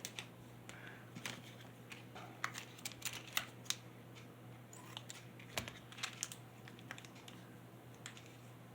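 Faint, irregular clicks and crinkles of plastic condiment packets being torn open, squeezed out and handled, over a steady low hum.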